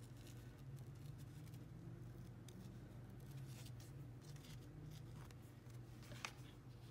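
Scissors snipping through a strip of decorative paper tape, with faint rustles and small clicks as the tape is handled, and one sharper click about six seconds in. A low steady hum sits underneath.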